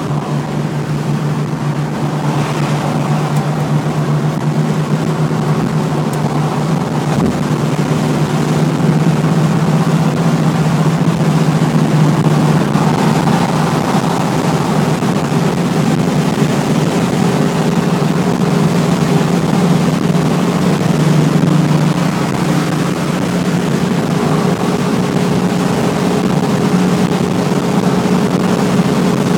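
Car engine droning steadily at highway cruising speed, with tyre and wind noise, heard from inside the cabin.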